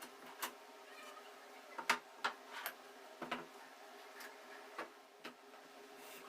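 Irregular light clicks and taps, about a dozen, from parts being handled during workshop assembly, over a faint steady hum.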